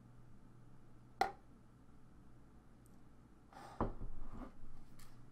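Quiet room with handling noises from a mug being put away: a single sharp click about a second in, then a thump and some rustling of movement a little before four seconds in.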